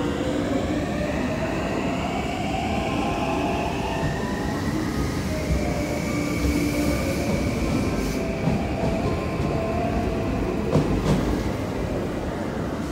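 JR West 521 series electric multiple unit pulling out from standstill: the whine of its inverter-driven traction motors rises in pitch as it accelerates, over the rumble of its wheels. Several sharp clacks come from the wheels over rail joints in the second half.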